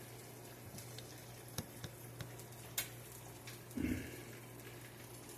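An egg and bologna frying in pig fat in a pan: a soft, steady sizzle with occasional sharp pops and crackles of spattering fat.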